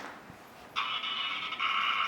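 LESU tracked RC skid-steer loader's sound unit starting its simulated engine sound through a small speaker. It cuts in suddenly about three-quarters of a second in and runs on as a steady, thin, high-pitched engine drone.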